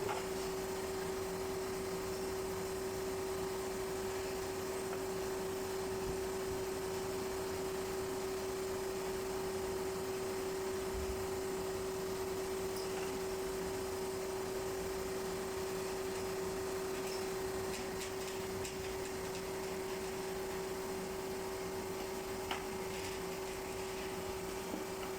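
Steady machine hum with one constant mid-pitched tone over a faint even noise, and a few faint clicks near the end.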